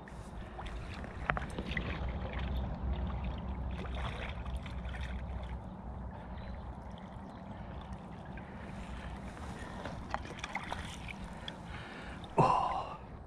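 Small splashes and water swirling from a hooked asp fighting at the surface, then a loud splash about twelve seconds in as it is scooped into a landing net.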